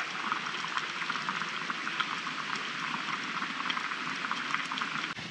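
Steady night-time rainforest ambience: a dense, even crackling patter with many tiny ticks and no distinct calls.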